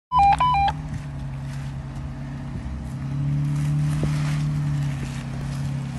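A short electronic chime of a few quick beeps at the very start, then a Jeep Wrangler's engine running at low revs as it crawls over a rocky trail, growing a little louder for a couple of seconds midway.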